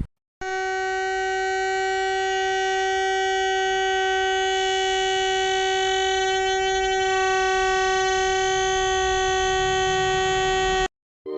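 Portable rechargeable mini juicer cup's small electric motor running: a steady high-pitched whine with a low churning rumble underneath. It starts abruptly and cuts off abruptly after about ten seconds.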